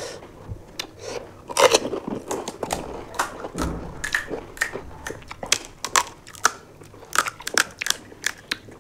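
Crisp, hollow panipuri shells crunching close to the microphone as they are cracked open and chewed: a quick, irregular run of sharp cracks and crunches, several to a second.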